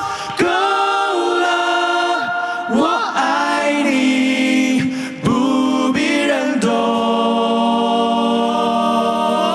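A cappella vocal group of mixed male and female voices singing in close harmony, a lead voice over backing parts. From about two-thirds through, the voices settle onto a long held chord.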